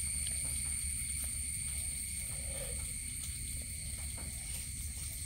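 Quiet steady background: a low hum under a constant high-pitched whine, with a few faint ticks.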